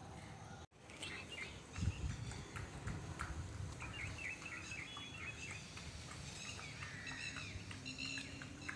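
Small birds chirping and twittering outdoors, many short calls, with a dull knock about two seconds in.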